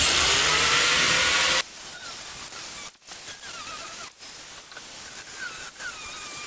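A power tool's motor starting up, its whine rising in pitch as it spins up, then cut off abruptly after about a second and a half. After that only faint background sound remains, with some light chirping.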